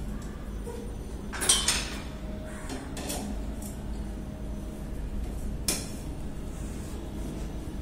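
Metal parts of a satellite-dish mounting bracket clinking and clanking as they are handled and fitted together, loudest in a short clatter about one and a half seconds in, with a sharp click near six seconds.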